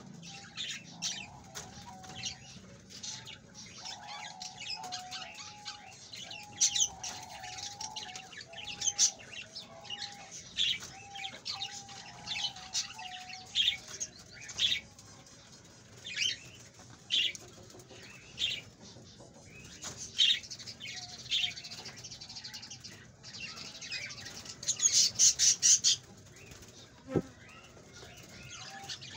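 Rabbits crunching corn from a clay bowl: irregular sharp crunches and crackles, with a dense, loud run of them near the end.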